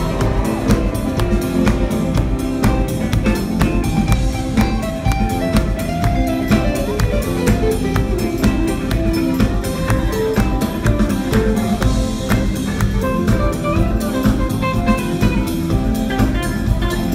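Live rock band playing an instrumental jam: two electric guitars over a drum kit keeping a steady beat, loud through the hall's PA.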